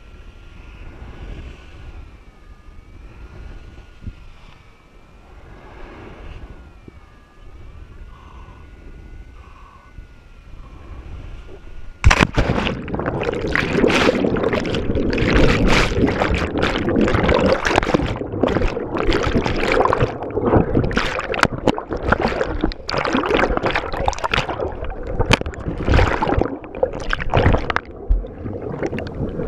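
Wind rushing over the microphone with a faint warbling tone during the descent under a collapsed paraglider; about twelve seconds in, a sudden loud splash as the pilot hits the sea, followed by churning, gurgling underwater water noise and bubbles.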